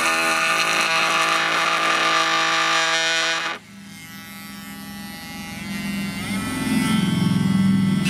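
Makita DTM52 cordless brushless oscillating multi-tool running as its Starlock blade cuts a sheet board. It cuts off suddenly about three and a half seconds in, then starts up again and builds back to full loudness near the end.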